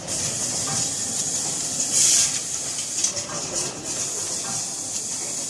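Automatic indwelling-needle assembly machine running: a steady hiss of air from its pneumatic cylinders, with a louder burst of air exhaust about two seconds in and light clicks from the moving parts.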